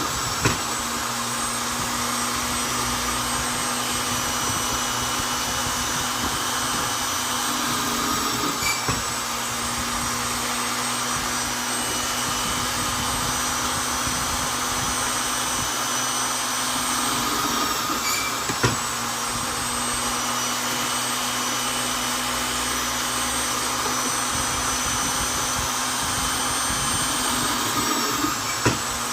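Vonder electric drill running steadily while boring into wood, its motor whine holding one pitch. The pitch sags briefly about every ten seconds, each time with a sharp click.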